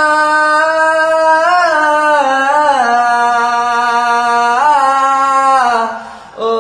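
A man singing unaccompanied without words, holding long notes with small ornamental bends that step down in pitch. He breaks off briefly near the end, then starts a new note.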